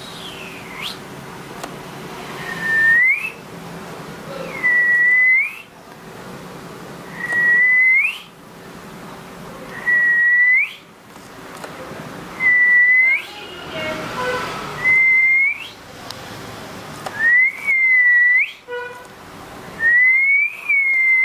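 Whistled note repeated about eight times, roughly every two and a half seconds: each one a clear single tone held briefly and then sweeping sharply up in pitch at its end.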